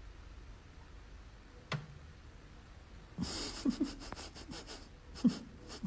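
A metal fork clicks once against a ceramic plate a little under two seconds in, knocked by a cat's paw. From about three seconds in come stifled, breathy snorts and wheezes of muffled laughter close to the microphone, with another sharp click near the end, over a low room hum.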